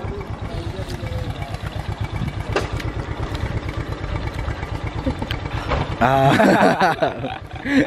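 A vehicle engine idling with a steady low, rapid throb. About six seconds in, a man's voice rings out loudly for about a second over it.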